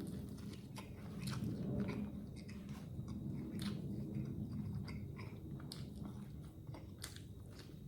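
A person chewing food close to the microphone, with many scattered short wet clicks and crunches over a steady low hum.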